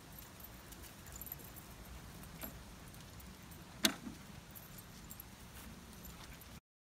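Metal motorcycle pet carrier's front door being swung shut and latched: light metallic clinks and rattles, then one sharp clack about four seconds in.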